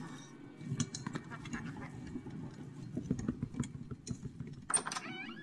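Quick little footstep pats as a cartoon Minion in a maid's costume waddles off across carpet. About five seconds in comes a short, high, squeaky Minion vocal.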